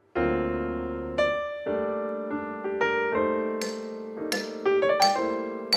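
Piano music that starts suddenly with a chord just after the opening, then moves through a slow sequence of notes over held chords.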